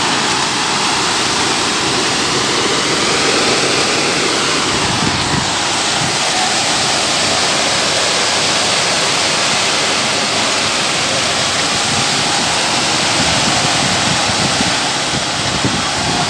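Wet concrete pouring in a steady, continuous stream, with an engine running underneath.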